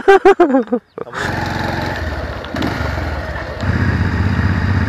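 Motorcycle engine running steadily on the move, starting about a second in and getting louder about three and a half seconds in.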